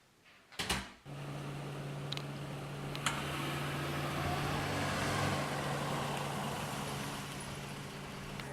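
A thud about half a second in, then a steady mechanical hum with a rushing noise, with one constant low tone throughout.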